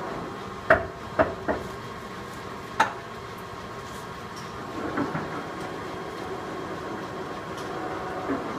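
Heavy Poreba engine lathe running with a steady hum while its headstock gear-change levers are shifted. Four sharp metallic clanks come in the first three seconds, with softer clunks about five seconds in and near the end.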